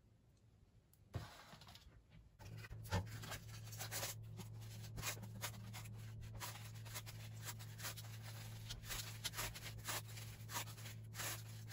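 Paper cupcake cases crinkling, with light taps as puff pastry bites are set into them and placed on a tray, heard as a run of short rustles and clicks. A steady low hum comes in a couple of seconds in.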